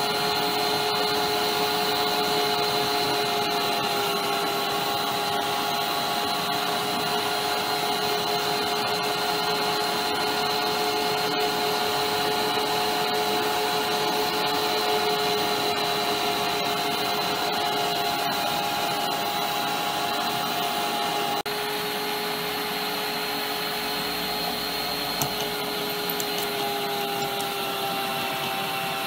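Bosch electric meat grinder's motor running steadily with a whine, as its auger forces soft food out through the grinding plate.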